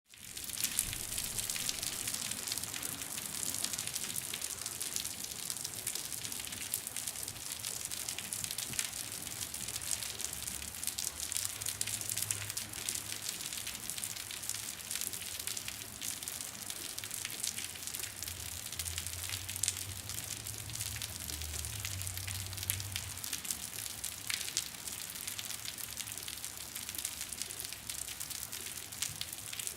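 Rain falling on concrete: a steady hiss of countless small drop impacts, with sharper individual drips ticking through it.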